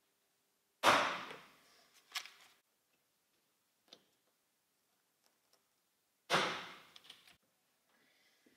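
Hand pop-rivet tool setting rivets: two sharp snaps about five seconds apart as the mandrels break, with a few lighter clicks of the tool in between and after.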